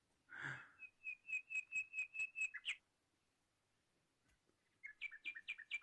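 A green parrot giving repeated short high chirps at a steady pitch, about five a second: a run of about nine ending with an upward flick, then after a pause a shorter run near the end.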